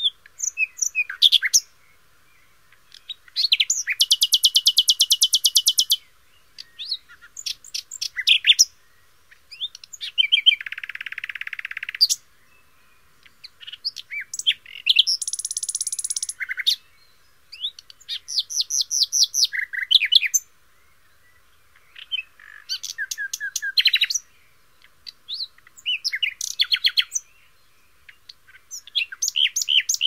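Recorded calls of assorted bird species played back one after another from a bird-sounds soundboard: fast trills, repeated chirps and whistled notes. Each clip lasts a second or two, with brief silences between them.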